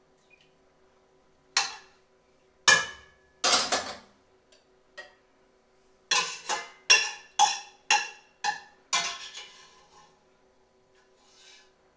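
Metal ladle and spoon clinking against a stainless steel saucepan and a china soup plate while soup is served: three separate clinks, then a quick run of about seven, each ringing briefly.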